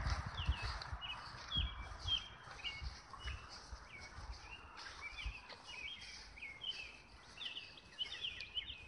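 Birds chirping: a steady stream of short, high calls that grows busier near the end, over outdoor background noise and scattered low thumps.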